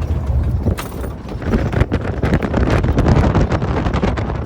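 Wind buffeting the microphone, a heavy low rumble with many knocks and rustles of handling or movement mixed in.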